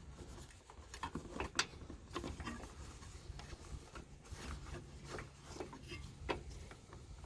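Faint rubbing and a few scattered light clicks and taps of hands working wiring and a connector into place.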